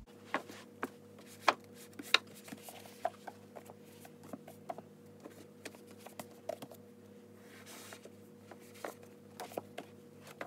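Paperback books being handled and moved on a bookshelf: a string of soft knocks, taps and scuffs as books are pulled out, slid and stacked, the sharpest knocks about one and a half and two seconds in, over a faint steady hum.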